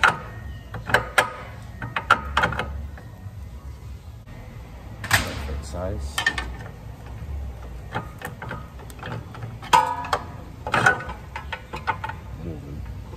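Scattered metal clicks and knocks from a Honda Civic Si's front lower control arm and ball joint being pulled down, lifted and turned by hand, with a few short ringing clinks.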